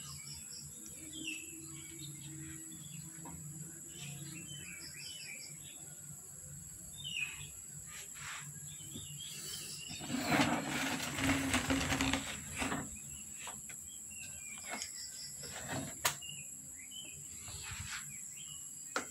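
Birds chirping in short scattered calls over a steady background hum. A louder noisy stretch of about two seconds comes about ten seconds in, and a sharp click near sixteen seconds.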